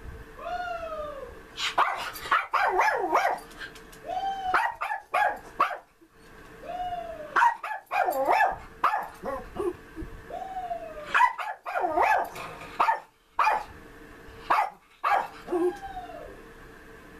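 A small dog barking in repeated bouts, each run of sharp barks led by a long rising-then-falling whine, about four times over.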